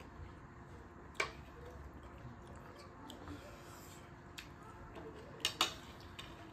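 Metal forks and spoons clinking against ceramic plates: a few sharp, spaced clinks, the loudest two close together about five and a half seconds in.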